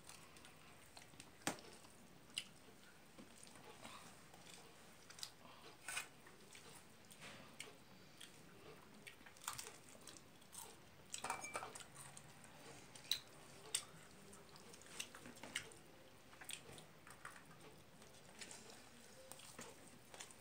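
Faint, scattered eating sounds: fingers squishing and mixing rice on a plate, with small clicks and taps at irregular moments.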